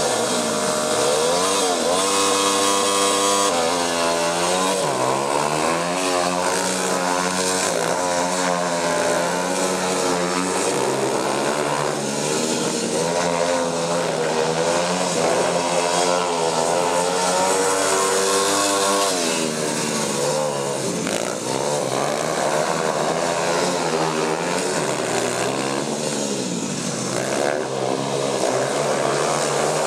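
Small youth speedway motorcycle engines revving up and down, the pitch rising and falling over and over with more than one engine heard at once, as the bikes lap the track.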